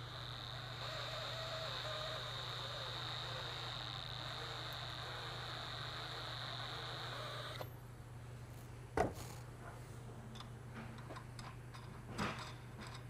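Power drill turning slowly with a Uniburr Plus chamfer bit cutting a chamfer on the end of a 5/8-inch grade 8 steel bolt: a steady motor whine with a scraping hiss, stopping about seven and a half seconds in. Two light knocks follow.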